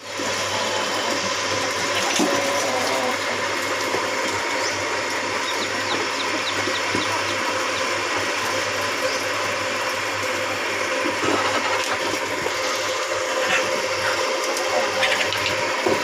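A steady mechanical hum from a small motor, with a few faint high chirps a few seconds in.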